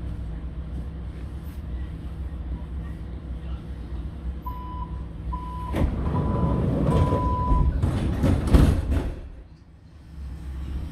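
Athens Metro Line 1 train standing at a station with a steady low hum. About halfway through, the door-closing warning sounds as a run of about four high beeps at one pitch, and the doors slide shut with a click, a loud rush and a few knocks.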